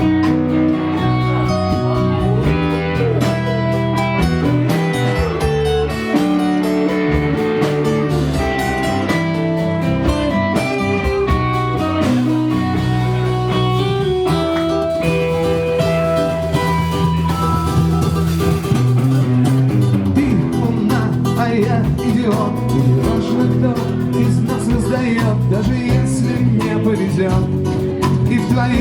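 Instrumental break in a song: guitar playing over a band accompaniment with held low notes, with no singing.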